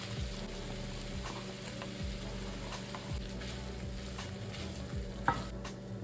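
Food sizzling as it fries in a pan, with light clicks of a utensil stirring it and one sharper clink about five seconds in.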